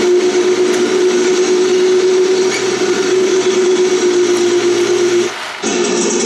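A recorded Tiger I tank engine sound effect playing from a cheap MP3 player fitted in a Heng Long RC tank, running steadily with a constant whine. It cuts out briefly about five seconds in, then starts again.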